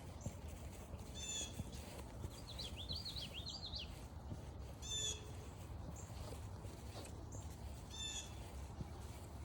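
Forest birds calling: one bird gives the same short call three times, a few seconds apart, and another twitters briefly between the first two calls. A steady low rumble of outdoor background runs underneath.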